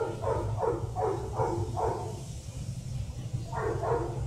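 A dog barking in quick runs, about three barks a second: a run of about five, a pause of a second or so, then more near the end, over a steady low hum.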